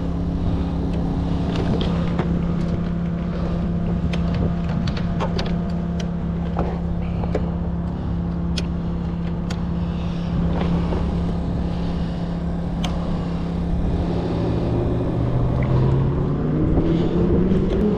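Portable generator engine running steadily, with scattered clicks and knocks of tools and clamps being handled. Near the end a second tone rises in pitch over the drone.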